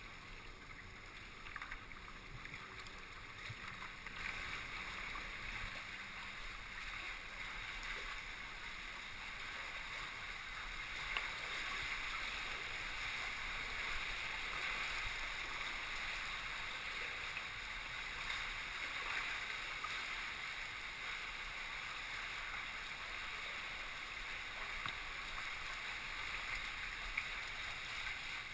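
Water rushing and gurgling around a moving kayak, a steady wash of sound with a few small ticks, growing a little louder a few seconds in.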